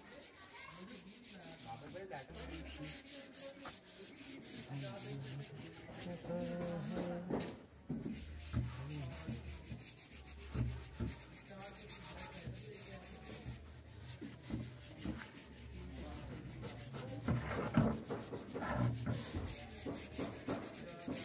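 A polish-soaked cloth rubbed by hand over wooden table surfaces, a continuous scratchy friction sound of short irregular strokes.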